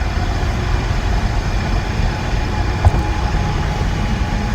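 Road and drivetrain noise inside a Ford Ranger pickup's cab while driving, its rear window out. A single knock comes about three seconds in, and a faint steady whine runs through the second half.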